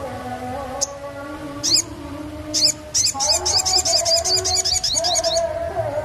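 Sunbird singing: a few separate high, sharp chirps, then a fast trill of rapidly repeated high notes lasting about two and a half seconds, over background music.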